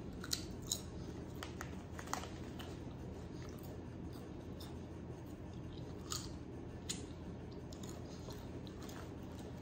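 Crunching and chewing thick-cut potato chips: sharp crunches close together in the first two seconds, then scattered single crunches, over a steady low room hum.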